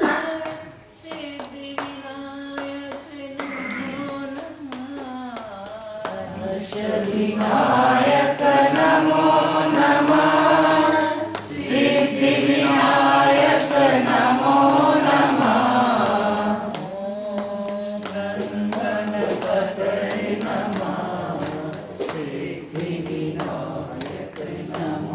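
A group of women singing a Hindu devotional bhajan together on one melody. The singing grows louder about six seconds in and falls back about sixteen seconds in.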